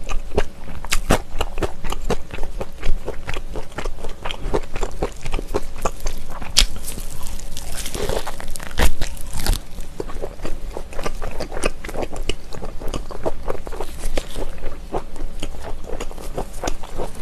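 Close-miked eating sounds of smoked pork belly being bitten and chewed: a steady run of wet clicking chews, with a louder bite about eight to nine seconds in.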